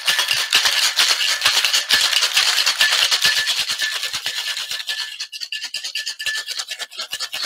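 Ice rattling hard inside a tin-on-tin metal cocktail shaker during a vigorous shake, a fast, even clatter that eases off near the end.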